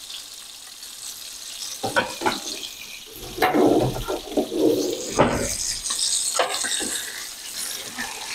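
Salmon fillets sizzling in a frying pan, a steady hiss that brightens in the last couple of seconds as the fillets are worked with a spatula. Kitchen utensils clatter in the middle, with a sharp knock about five seconds in.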